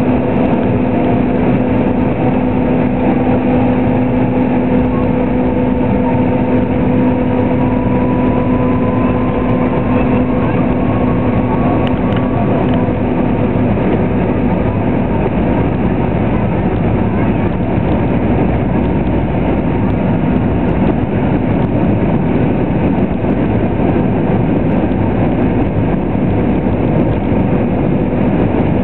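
Airliner cabin noise from the jet engines while the plane rolls on the ground: a steady rush with a low hum and a faint whine that slowly rises in pitch over the first dozen seconds.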